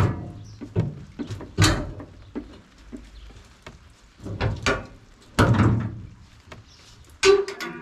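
Heavy metal clunks and knocks from a hand lever and its wheel linkage being worked in a welded aluminium boat hull, several separate strikes at uneven intervals. A short creak comes with the last strike near the end.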